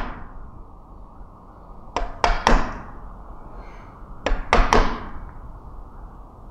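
Wooden carpenter's mallet striking the handle of a wood chisel, cutting along the grain: two quick groups of three sharp knocks, about two seconds apart.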